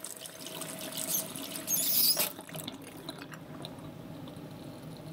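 Kitchen faucet running into a metal sink, then a short high squeak of the tap handle about two seconds in as it is turned off. After that the room is quiet with a low steady background. This is the stock sound-effect version of the scene.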